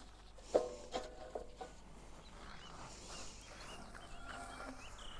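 Steel slab trolley clattering down: a sharp ringing metallic clank about half a second in, then a few lighter rattles over the next second. Small birds chirp faintly later on.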